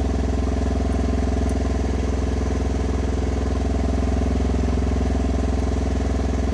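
Engine idling steadily, an even low running sound that holds constant throughout.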